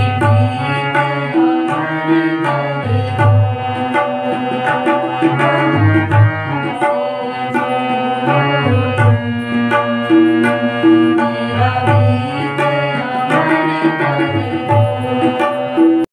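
Harmonium and tabla playing together: the harmonium's reeds carry a held, chordal melody while the tabla keeps a steady rhythm of deep bass-drum strokes and sharp treble strokes.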